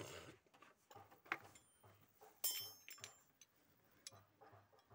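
Faint handling of metal tools and starter-motor parts: a few light clicks, and about two and a half seconds in one sharper metallic clink that rings briefly.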